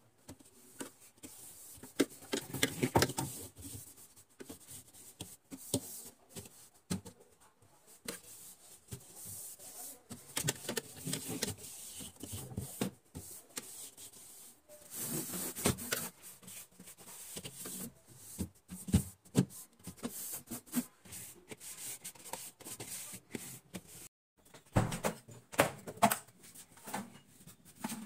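Cleaning and handling inside a refrigerator: irregular rubbing and wiping with light knocks and clatter of shelves and containers.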